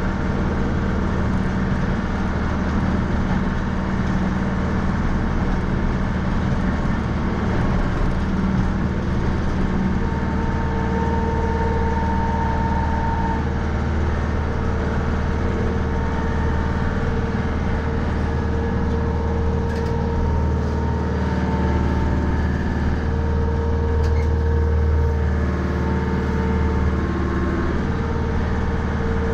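Mahindra 3550 tractor's diesel engine running steadily under load while plowing snow. A higher whine comes and goes over the engine note in the second half.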